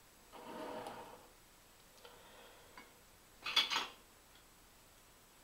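Full glass jar of pickled cucumbers being handled on a worktop: a short scraping rustle about half a second in, then a quick cluster of sharp glassy clinks about three and a half seconds in.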